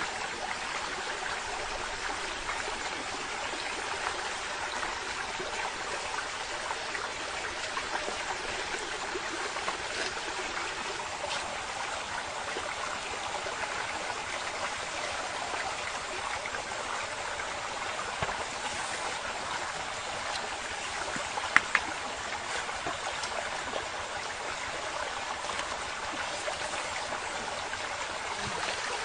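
Steady rushing of a nearby stream, with a couple of sharp knocks about three quarters of the way through.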